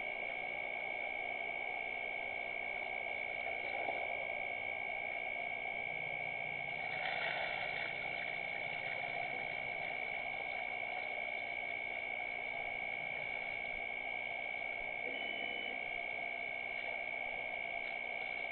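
Steady night-time ambience at a waterhole: an even hiss with a constant high-pitched tone, and a brief louder rustling noise about seven seconds in.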